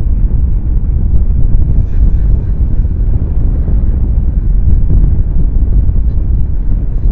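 Wind buffeting an outdoor nest camera's microphone: a loud, steady low rumble.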